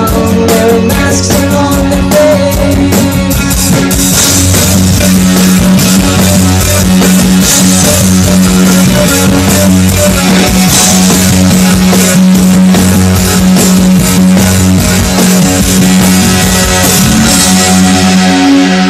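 Live rock band playing loud, with electric guitars and a drum kit over a long held low note.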